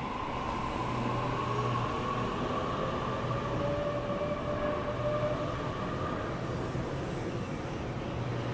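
Sydney Trains Waratah A-set electric double-deck train departing the platform, its cars rolling past with a steady rumble. A whine from the electric traction motors rises as it picks up speed.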